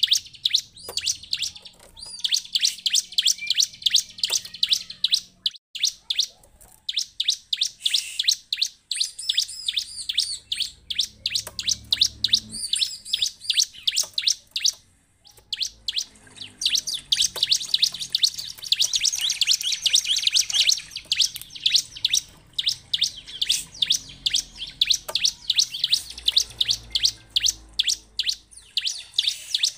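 Bar-winged prinia (ciblek) calling in long runs of rapid, high chirps, about four to five a second, broken by short pauses about five and fifteen seconds in.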